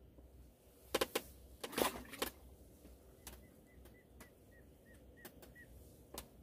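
Sharp clicks and knocks from fishing tackle being handled: a loud cluster about one to two seconds in, then single clicks every second or so.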